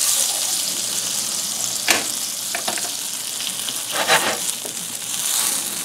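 Smoked bottom round beef roast searing in a hot cast iron skillet: a steady sizzle of fat and juices, with a couple of short louder flares about two and four seconds in.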